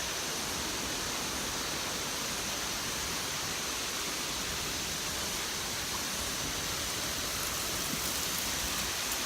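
Steady gushing of a waterfall's rushing water, an even hiss with no breaks.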